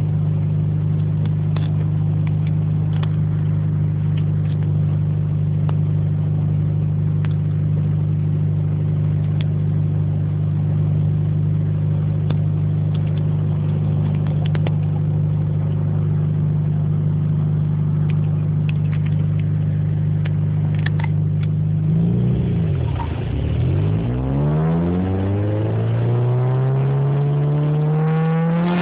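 Honda B16 1.6-litre DOHC VTEC four-cylinder in an Integra running at steady revs for about twenty seconds. The revs then dip and climb again in rising sweeps as it accelerates. The car has an exhaust leak at the front of the system.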